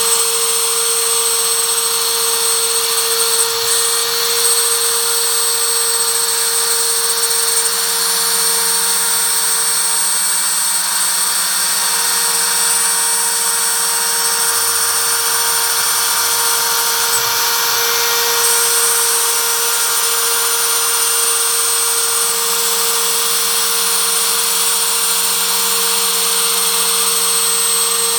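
Router spindle on an MPCNC machine running steadily while it mills 4 mm plywood. A lower hum under it comes and goes as the machine moves.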